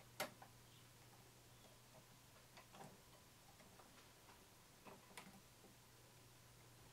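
Quiet, sparse clicks and taps of long-nose pliers on a wire terminal and wiring inside a food mixer's housing, the sharpest click just after the start and a few fainter ones later, over a faint low hum.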